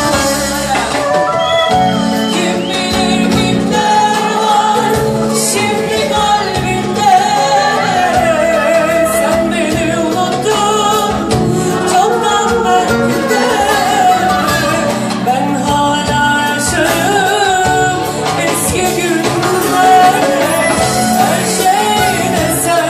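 A live band playing a Turkish song while a woman sings an ornamented, wavering melody line over the accompaniment.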